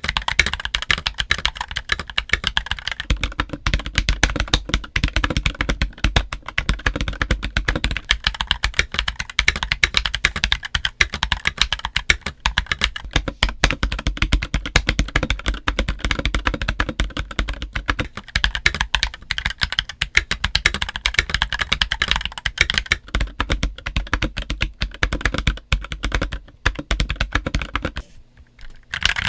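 Fast typing on an MK870 mechanical keyboard with JWK Black linear switches and DCX keycaps, alternating between its stock steel plate with plate-mounted stabilizers and a polycarbonate plate with PCB stabilizers. The typing stops about a second before the end.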